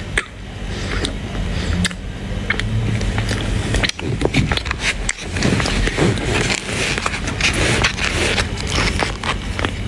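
A compressed cornstarch bar being squeezed and crumbled by hand, giving crunching and squeaking with sharp crackles. It grows denser and busier from about four seconds in.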